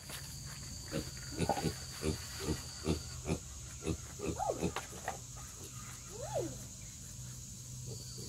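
American Guinea Hogs grunting, a run of short grunts about two a second, with two longer calls that rise and fall in pitch near the middle.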